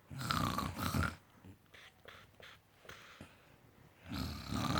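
A person imitating snoring: a rough, rattly snore about a second long, then a second snore starting about four seconds in.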